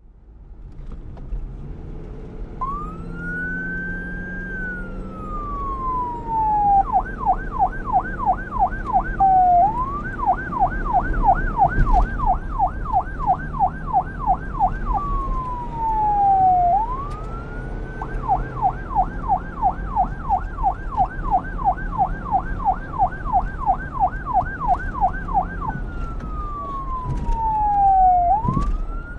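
Electronic police car siren switching between a slow wail and a fast yelp. It starts a few seconds in with slow rising and falling sweeps, then changes three times to runs of rapid warbling sweeps, each run ending in a slow fall. A low rumble runs underneath.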